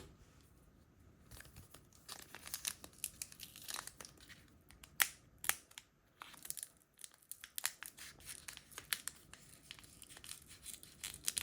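Crinkling and tearing of a Pokémon booster pack's foil wrapper as it is handled and ripped open, an irregular run of sharp crackles that starts about a second in.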